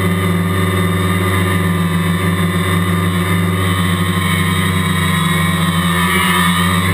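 Quadcopter's electric motors and propellers running steadily in flight, a loud hum made of several steady tones, heard up close from the GoPro mounted on the craft. The pitch of the upper tones shifts slightly about six seconds in.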